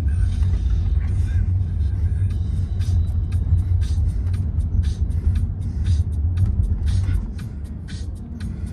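Steady low rumble of a car driving slowly, heard from inside the cabin, with music playing in the background.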